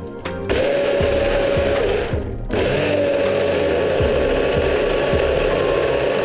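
Nutri Blitzer personal bullet blender blending a smoothie: a steady motor whine starts about half a second in, cuts out briefly around two seconds, then starts again and runs on.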